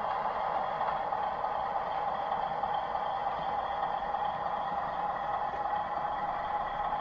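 Model locomotive's sound decoder playing a steady diesel engine running sound through its small onboard speaker, as the model of Bulleid prototype diesel 10201 runs slowly along the track.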